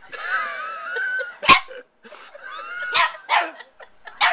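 Small white terrier barking: a drawn-out, wavering whine-like bark first, then about four short sharp barks.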